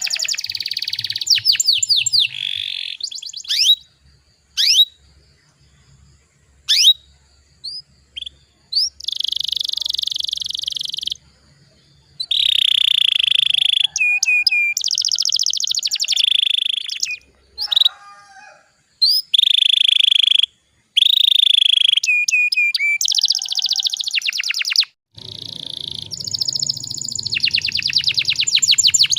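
Domestic canary singing: fast trills and long buzzy rolls mixed with sharp up-swept single notes, in phrases separated by short pauses. A low rumble of background noise sits under the last few seconds.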